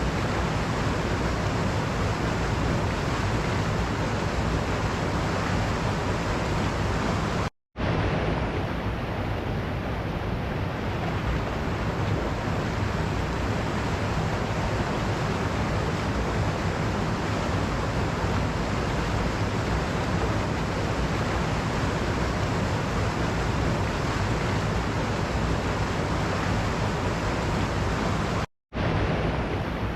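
Waterfall: a steady rush of falling water, cutting out completely for a split second twice.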